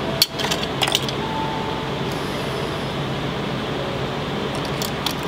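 Steady mechanical hum with a hiss, like a fan running, with a few light clicks and taps about a second in and again near the end.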